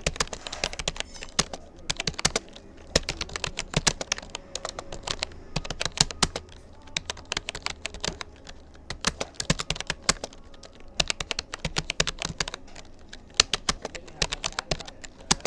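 Typing on a Rapoo computer keyboard: quick, uneven runs of key clicks broken by short pauses.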